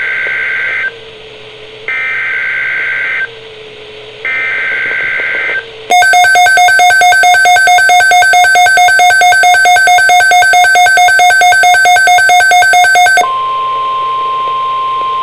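Emergency Alert System weather-radio alert: three short bursts of SAME header data, then a loud alarm tone pulsing several times a second for about seven seconds, which gives way to a steady single-pitch attention tone about thirteen seconds in.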